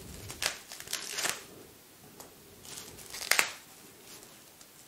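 Foam packing wrap and tape being pulled and torn open by hand: a few short crinkling rustles, the sharpest a little past three seconds in.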